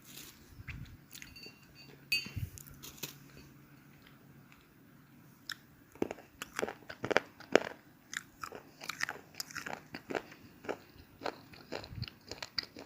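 Slate pencil being bitten and chewed close to the microphone: a few scattered crunches at first, then quick, sharp crunching several times a second from about halfway in.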